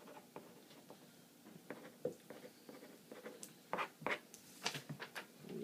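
Pen writing on a sheet of paper on a desk: short scratching strokes, coming faster and louder from about halfway through.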